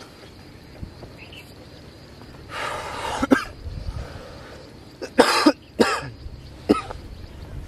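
A person clearing their throat about three seconds in, then coughing three times in quick succession.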